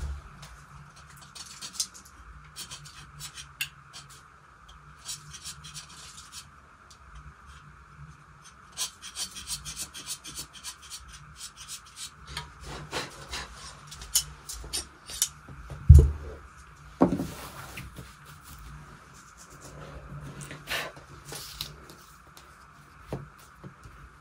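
Marking strokes scratching and rubbing on blouse fabric as it is measured out for cutting. The strokes come in short scattered runs, and there is one sharp thump about two-thirds through.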